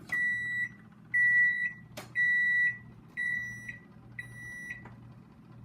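Kitchen oven's electronic control beeping five times, one beep a second, the last two quieter, signalling that the door lock has been set. A sharp click comes about two seconds in and another near the end.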